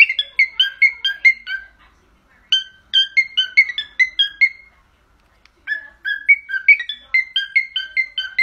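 Cockatiel whistling an imitation of a phone ringtone: three runs of quick, clear notes stepping down in pitch, about five notes a second, with short pauses between runs.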